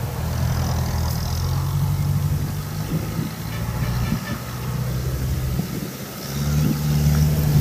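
Small diesel farm tractor engine running steadily while towing a loaded trailer of rice sacks. It eases off briefly about six seconds in, then picks up louder.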